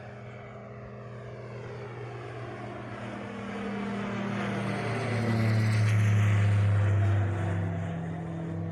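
Light propeller aeroplane flying past: a steady engine and propeller drone grows louder, is loudest about six seconds in, then fades slightly as the pitch drops.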